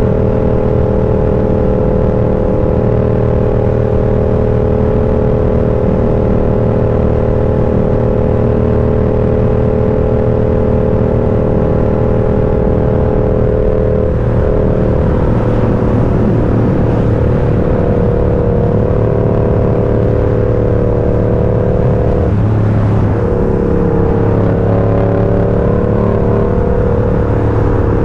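A road vehicle's engine running steadily under way, its note holding level and then changing pitch about fourteen seconds in and again a little past twenty-two seconds.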